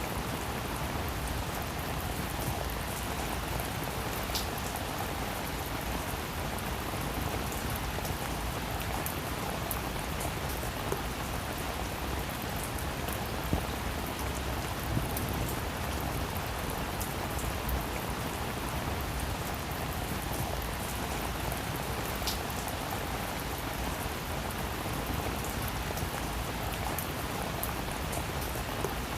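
Heavy rain falling steadily, a dense even hiss with the patter of individual drops striking a surface.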